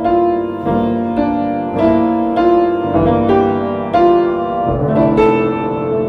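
Piano playing a slow, melodic piece, with a new note or chord struck about every half second, each ringing out and fading before the next.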